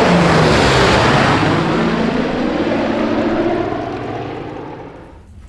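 Propeller aircraft engines running with a steady low drone, loud at first and fading away over the last couple of seconds.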